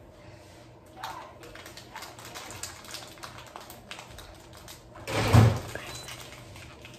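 Scattered light clicks and taps close to the microphone, then a loud, short rush of noise with a low thud in it about five seconds in.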